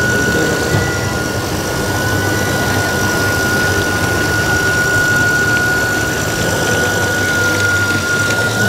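1:8 scale radio-controlled Liebherr crawler dozer running as it pushes soil: a steady high whine over a low, engine-like hum.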